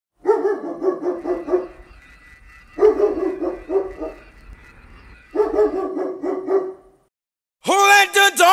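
A dog barking in three quick runs of yaps, each about a second and a half long, with music starting near the end.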